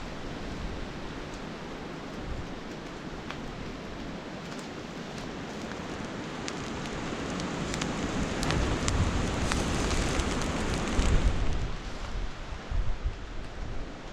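Bacon sizzling and popping in the blade of a steel sapper shovel used as a frying pan over a campfire: a steady hiss scattered with small sharp pops. It swells louder in the second half, with a low rumble underneath, and settles again near the end.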